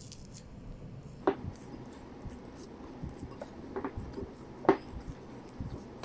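Hands kneading soft bread dough in a bowl: quiet squishing and pressing, with two sharp knocks standing out, about a second in and near the end.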